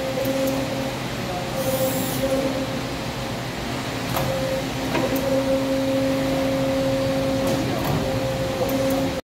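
CNC tube bending machine running as it bends a tube: a steady mechanical hum with a low and a higher steady tone, which fade out for a second or two in the middle and come back. A few faint clicks sound over it, and the sound cuts off suddenly near the end.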